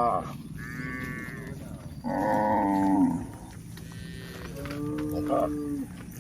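Cattle mooing: about four calls in a row, one of them higher-pitched, with the loudest about two seconds in.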